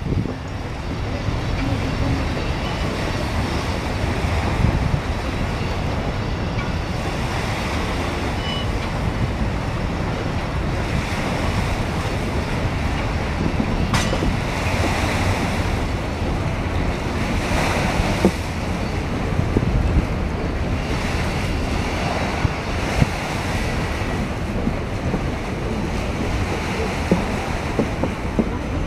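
Steady wind buffeting the microphone over a low rumble from an electric passenger train crossing a steel railway bridge.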